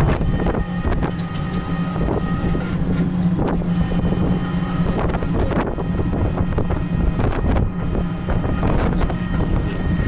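Wind rushing over the microphone during a ride in an open, canopied cycle rickshaw, over a steady low hum of the moving vehicle on the road.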